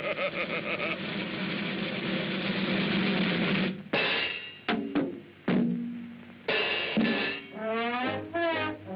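Cartoon orchestral score: a dense drum-and-cymbal passage, then a few sharp percussive hits with short gaps between them, then brass phrases with vibrato near the end.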